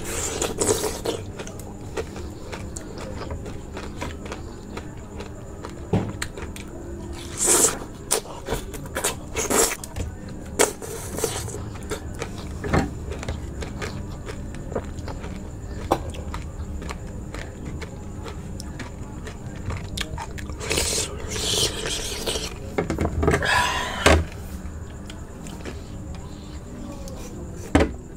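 Close-miked ASMR eating sounds of raw aloe vera: scattered clicks and short bursts of noise, louder about a quarter of the way in and again around three quarters through, over a faint steady high tone.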